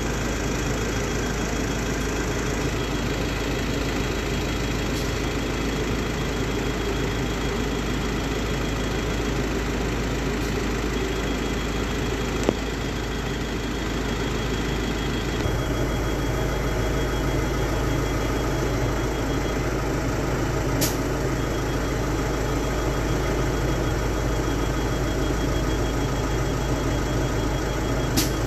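Ashok Leyland bus engine idling steadily, with a few sharp clicks, the loudest about twelve seconds in, and a faint high, rapidly pulsing tone that comes and goes.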